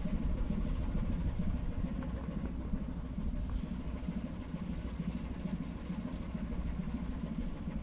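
Ship's engine running steadily, a low rumble with a haze of noise over it.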